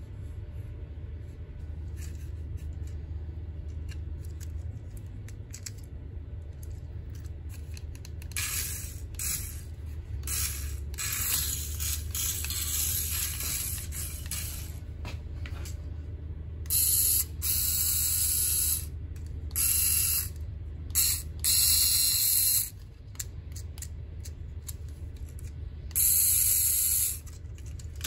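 Tiny electric drive motor and gears of a mini RC toy car whirring in repeated short high-pitched bursts as it drives on a hardwood floor, starting after about eight seconds over a steady low hum.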